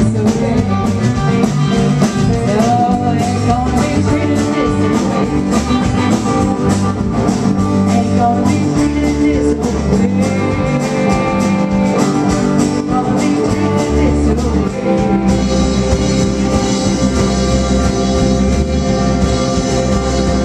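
Amplified live band playing a song on acoustic guitar, electric bass and electric guitar, with a woman singing at the microphone in places. The sound turns brighter about fifteen seconds in.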